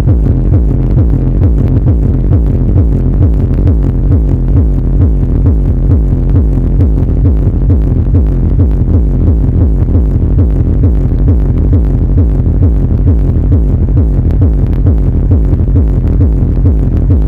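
Bass-heavy electronic dance music played loud through a large outdoor sound system under a bass test, with deep bass pulses in a fast steady beat and little treble.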